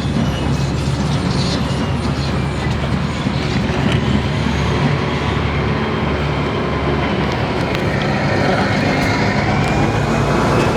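Heavy construction machinery running steadily at road works: a continuous low diesel engine hum with a faint high whine on top.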